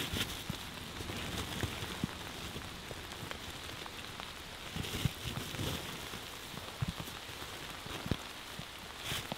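Steady rain with many scattered drop taps, and fresh-picked tea leaves and cloth sacking rustling and thumping as they are packed into a sack by hand.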